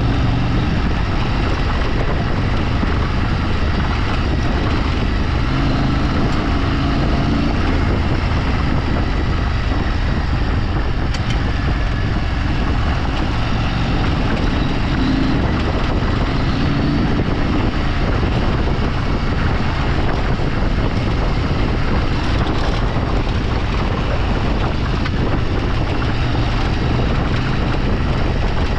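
A vehicle engine running steadily on the move, its note rising and falling slightly, with wind rushing over the microphone.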